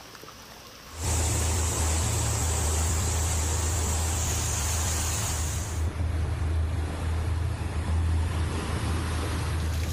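Loud rush of floodwater and storm noise recorded on phones, with a heavy steady low rumble; it starts abruptly about a second in and changes character about six seconds in.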